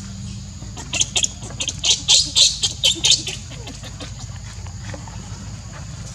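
Baby macaque squealing: a quick series of short high-pitched cries from about a second in to about three seconds in, then stopping.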